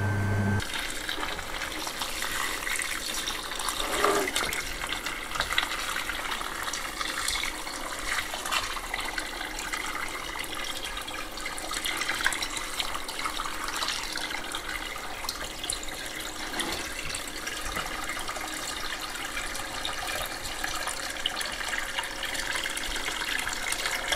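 Water poured in a steady stream from a plastic watering can into a tub of dry lime powder, covering the lime to make lime putty.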